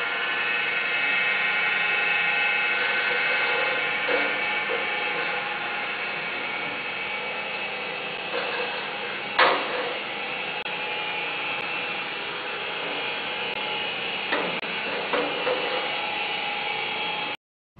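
Patterson-Kelley twin-shell V blender running, its electric motor and gearbox turning the stainless steel shells with a steady whine of several high tones. A few short knocks come through it, the loudest about nine seconds in, and the sound cuts off near the end.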